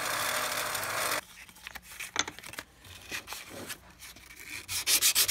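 A 1-inch belt sander grinding the edge of a steel chisel, a steady rasping hiss that cuts off abruptly after about a second. Faint rubbing follows, then near the end sandpaper rubbed by hand over the chisel in quick, rhythmic back-and-forth strokes.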